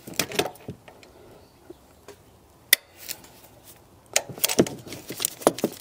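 Sharp metal clicks and clinks from locking pliers and a 14 mm socket as they are adjusted and clamped on an alternator mounting bushing to press it out. There are a few clicks near the start, a single one in the middle, and a quick cluster in the last two seconds.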